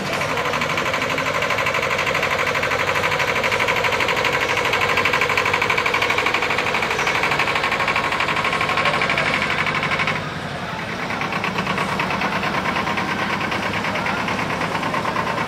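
Multicar M25 utility vehicle's diesel engine running slowly as it pulls a float trailer past, a steady, rapid clattering pulse. It drops briefly in level about two-thirds of the way through, then carries on.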